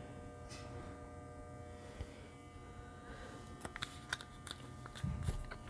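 Steady electrical hum and buzz in a small room, with a few light clicks about two-thirds of the way through and a soft low thump near the end, small handling noises of tools at the work table.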